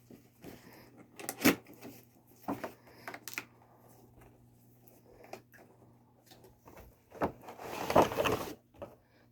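A collectible figure's box being opened carefully by hand: scattered taps and clicks of the packaging, then a longer rustling scrape near the end as the contents are slid out.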